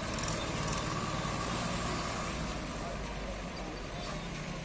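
Swaraj 744 FE tractor's three-cylinder diesel engine running steadily as it hauls a fully loaded trolley of grain sacks.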